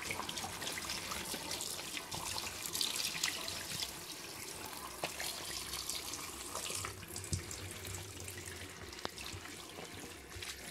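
Tap water running into a sink, with many small wet ticks and squelches as a soapy sponge and hands scrub the skin of a plucked chicken.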